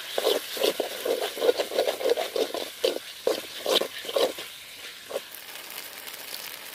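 Perforated steel spatula scraping and stirring tomatoes and onions frying in oil in a kadai, in quick repeated strokes. The stirring stops about five seconds in, leaving a faint steady sizzle of the masala cooking.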